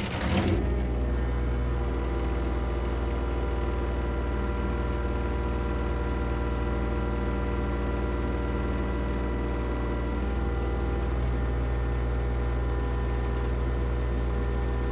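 A machine engine running steadily at constant speed, its note settling about half a second in and holding level throughout.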